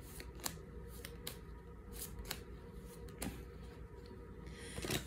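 A deck of angel oracle cards being shuffled by hand: a string of light card snaps and flicks at an uneven pace, about two or three a second, bunching up near the end.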